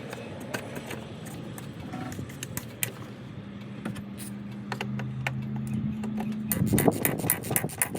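Clicks and small metallic rattles of hand work on parts, thickening into a dense, loud clatter over the last second and a half, with a steady low hum in the middle. The sound cuts off abruptly at the end.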